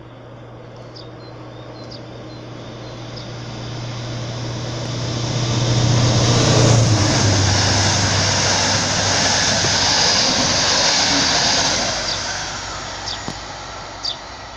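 A Regional-Express hauled by a class 245 diesel-electric locomotive passing close by: the locomotive's low engine hum grows louder and drops in pitch as it goes past about seven seconds in. The coaches then roll by with a steady rushing wheel-on-rail noise that slowly fades.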